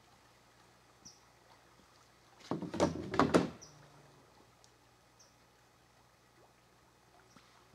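A cluster of loud knocks and rustling between about two and a half and three and a half seconds in, over a quiet background with a few faint short high chirps.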